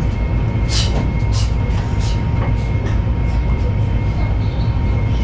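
Cabin noise of a CRH380B high-speed train running: a steady low rumble with a faint constant whine, and a few short high hisses in the first two seconds.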